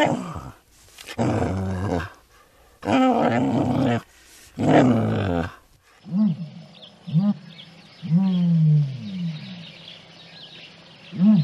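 Animal calls: three loud, rough, growl-like calls about a second each in the first half, then a run of short honking calls that rise and fall in pitch, each under a second, one longer than the rest, fitting an African penguin braying.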